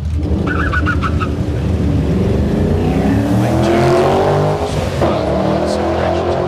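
Two V8 Holden Commodore drag cars accelerating hard from the start line on a quarter-mile run, their engine note climbing steadily. About four and a half seconds in it dips briefly at a gear change, then climbs again.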